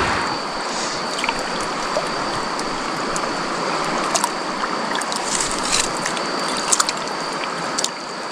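Fast-flowing river running high with rain water, rushing steadily, with a few small clicks and splashes and a thin high tone over it.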